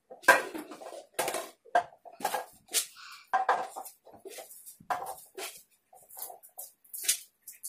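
Thin plastic drinking cups knocking and clacking against each other and the glass tabletop as they are picked up, nested and set down on a stacked pyramid: a stream of short, irregular knocks.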